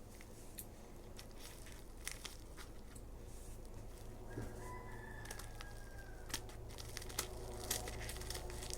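Plastic toy packaging crinkling and rustling with scattered small clicks as it is handled and opened. A faint, drawn-out call sounds in the background about four to six seconds in.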